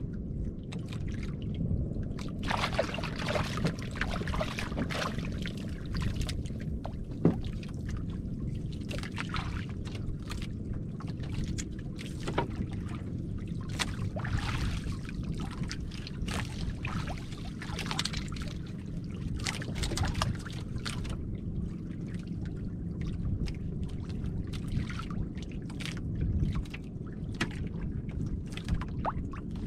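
Sea water lapping and splashing against the hull and bamboo outrigger of a small outrigger boat, with scattered small splashes and knocks over a steady low rumble, and one sharp knock about seven seconds in.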